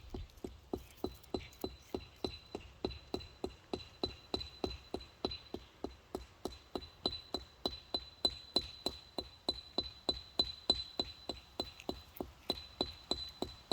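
Stone work: a hammer striking stone in a steady rhythmic drumming, about three sharp knocks a second. A faint steady high tone runs under it from about a second in.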